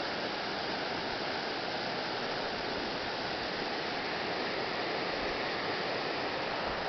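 River rapids rushing over rocks, a steady, even sound with no change in level.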